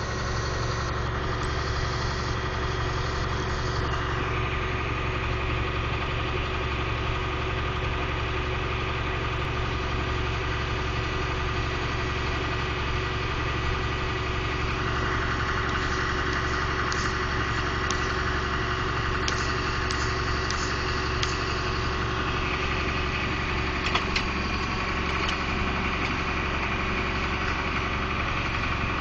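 Vehicle engine running steadily, with a few scattered metallic clicks and one sharp knock near the end.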